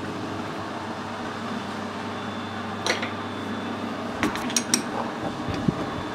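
Light metallic clinks and rattles over a steady machine-shop hum, from a freshly parted-off metal piece being handled at the lathe among the swarf. There is one clink about three seconds in and a quick cluster of them just past four seconds.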